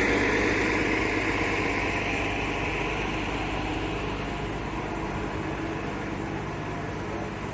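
Transit bus engine running with a steady rumble, slowly growing fainter.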